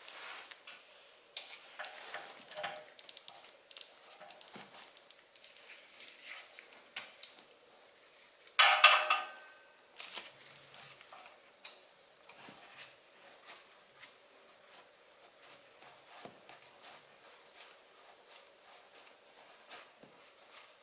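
Metal hand tools clicking and clinking as a motorcycle oil drain plug is threaded in and tightened with a hex socket on a small torque wrench. There is one loud metallic clatter with a short ring about nine seconds in.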